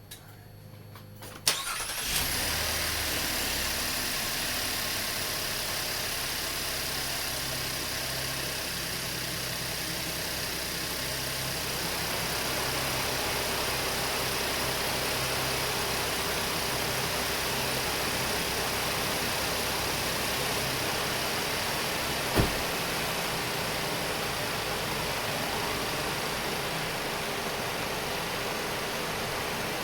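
Chevrolet Impala's 3.6 L LFX V6 starting up about a second and a half in, then idling steadily. There is a single sharp click about twenty seconds later.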